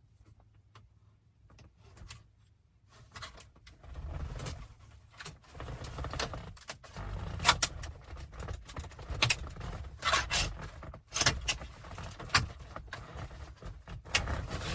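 Steel radio removal keys clicking and scraping in the dash slots, and the factory radio being worked loose from its clips and pulled from the dash. It starts about three seconds in as a busy run of sharp clicks, rattles and rubbing over low handling thumps.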